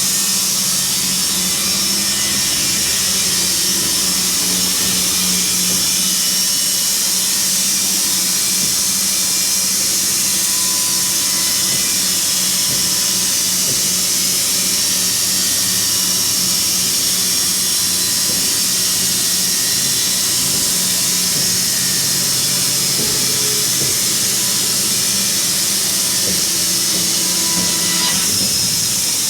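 Wood-Mizer LT70 band sawmill running steadily: a constant machine hum under a loud high hiss.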